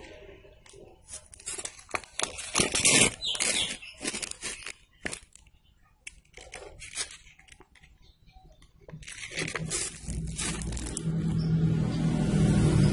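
Sheet of coarse sandpaper rustling and crinkling in a hand, with scattered short scrapes and handling noises. About nine seconds in, a steady low drone comes up and holds.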